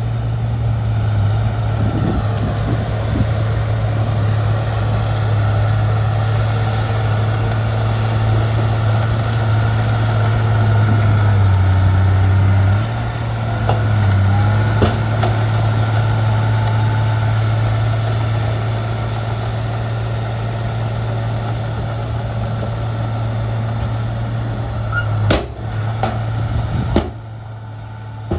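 Heavy diesel engine of a bulldozer running steadily, its pitch dipping briefly about halfway through, with a few sharp knocks. It turns quieter near the end.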